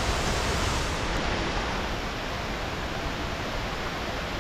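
Waterfall's steady rushing roar of falling water.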